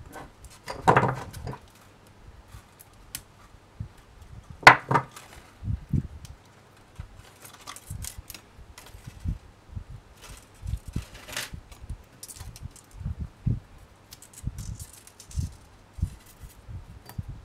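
Jewellery wire and wire-cutting pliers being handled close up: small metallic clicks and clinks, the wire brushing and rubbing, and soft knocks on the work surface. The sharpest click comes about five seconds in.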